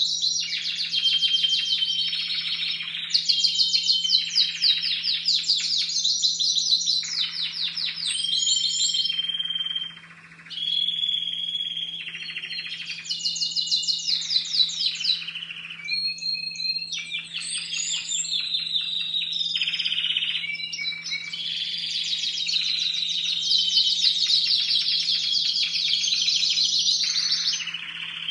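Young Timbrado Español canaries singing: a near-continuous run of rapid trills and rolls in phrases of a second or two, with a brief pause about ten seconds in. Their song repertoire is still forming at this stage of training.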